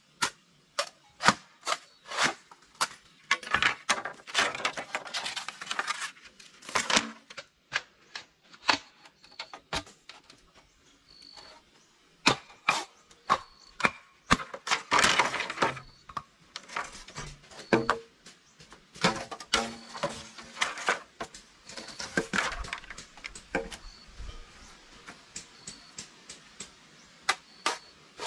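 Irregular knocks, clacks and cracks of hand work with hard objects, with short stretches of scraping and rustling in between; the clatter is busiest about three to six seconds in and again around fifteen and twenty-two seconds in.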